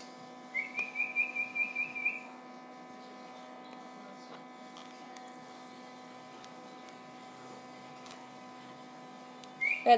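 Steady electric hum from a tabletop egg incubator, with a quick run of high chirps from a newly hatched quail chick about half a second in, lasting over a second.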